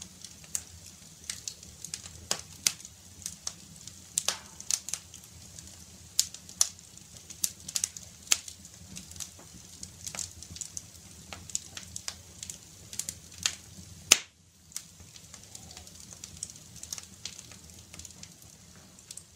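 Bioethanol fireplace burning, with irregular sharp crackles and ticks one to three a second over a faint low steady hum. The loudest crack comes about fourteen seconds in.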